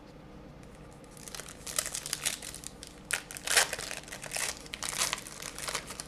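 Plastic trading-card pack wrapper being torn open and crinkled by hand. An irregular run of crackles starts about a second in, loudest about halfway through.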